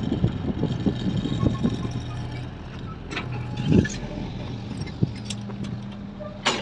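A river vehicle ferry's engine running with a steady low hum. Several knocks and clanks from the landing ferry and its gate sound over it, the loudest about four seconds in and a sharp clack near the end.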